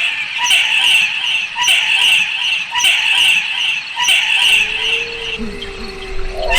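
An owl giving harsh, raspy screeches, five in a row about a second apart, stopping about five seconds in. Near the end a low steady tone that rises slightly comes in underneath.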